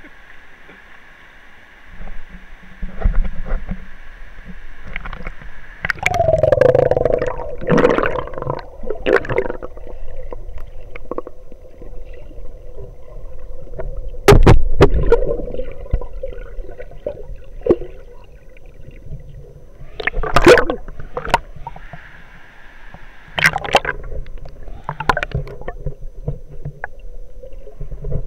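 Water gurgling and sloshing, heard muffled through an action camera's waterproof case, with a steady hum and several sharp knocks of the case, the loudest about halfway through.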